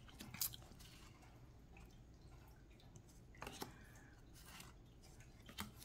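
Near silence broken by a few faint slides and taps of tarot cards being moved one at a time through the deck in hand.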